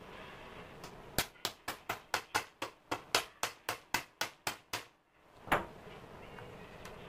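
Quick run of about fifteen sharp knocks, about four a second, then after a short pause one louder knock. The knocks come from the old electric planer's housing being tapped down against the cloth-covered floor to shake out packed dirt.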